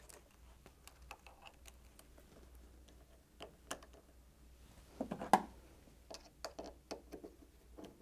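Faint, scattered clicks and taps of a small screw, an earth wire and plastic wiring connectors being handled on a fridge freezer's metal hinge plate, with a louder run of clicks about five seconds in.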